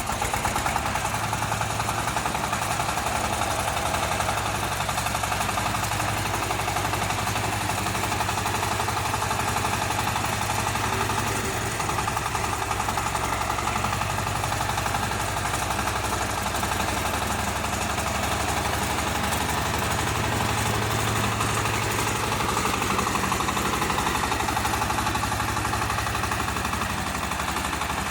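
Diesel engine of a 35 hp four-wheel-drive mini wheel tractor running steadily with a low, even chugging.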